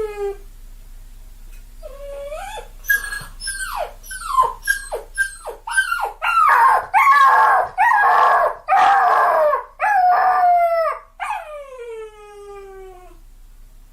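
Puppies crying: a run of high whines that fall in pitch, quick short yelps at first, then louder, longer cries, ending in one long falling whine.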